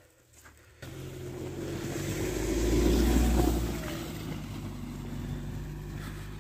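Engine of a Mahindra 4WD SUV running as it drives slowly through deep snow. It comes in suddenly about a second in, is loudest around three seconds in as it passes close, then runs on steadily as it moves off.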